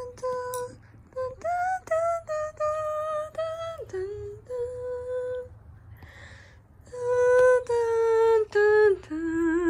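Slow wordless melody hummed in held notes, each lasting up to about a second, with short gaps between them and a quieter stretch near the middle.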